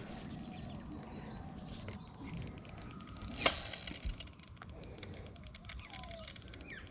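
Spinning reel being wound in against a hooked fish, its gears ticking rapidly, with one sharp click about three and a half seconds in.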